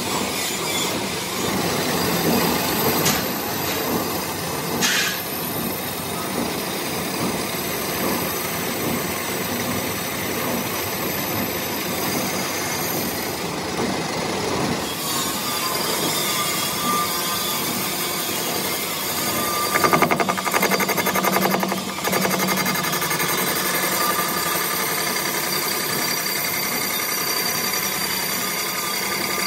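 Metal lathe turning a steel workpiece, the tool bit cutting and peeling off curled chips: a steady machine-and-cutting noise with high whining tones. A louder, rattling stretch comes about twenty seconds in.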